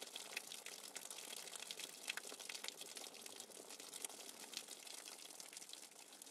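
Faint, steady splashing and hiss of a garden fountain's water jets falling into its pool.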